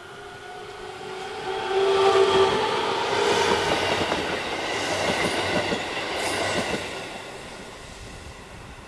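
JR Shikoku electric commuter train passing close by: a steady motor whine as it approaches, then the rumble and rhythmic clatter of wheels over rail joints as the cars go past, loudest about two seconds in and fading near the end.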